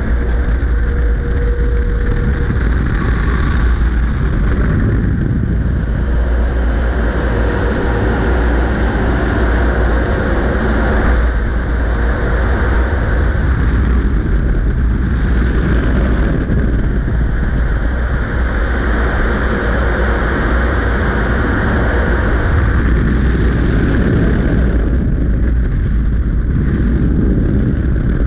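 Car wash dryer blowers pushing high-powered air over the car's hood: a loud, steady rush of air with deep wind buffeting on the microphone.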